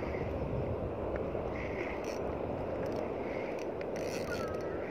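Steady wind rushing on the microphone over open sea water, with a few faint short clicks.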